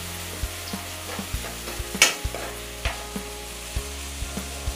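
Sliced onions sizzling in hot oil in a steel kadhai, being sautéed to a light pink, while a metal spoon stirs them and clicks and scrapes against the pan, with one louder clank about two seconds in.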